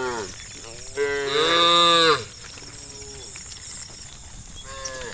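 Cows in a herd mooing: several separate moos, the loudest a long call lasting about a second from about a second in, with shorter, quieter moos at the start, in the middle and near the end.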